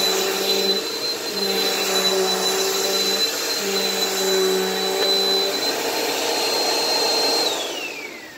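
Bissell Powerforce bagged upright vacuum cleaner running with a steady high whine, its lower hum coming and going every couple of seconds. Near the end it is switched off and the whine falls away as the motor spins down.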